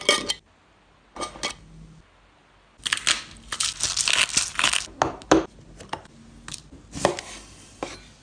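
Close-up food-preparation sounds. A metal screw-top spice jar is handled at the start, then a glass peppercorn grinder crunches for about two seconds. After that come scattered sharp clicks and taps, ending with a knife cutting through a lemon on a plastic chopping board.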